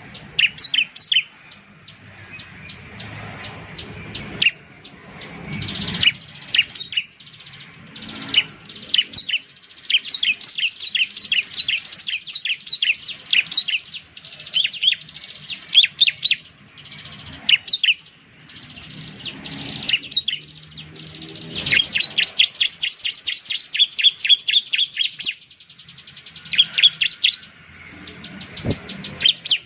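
Bar-winged prinia (ciblek) singing: runs of rapid, sharp, high-pitched chirps repeated several times a second, broken by short pauses.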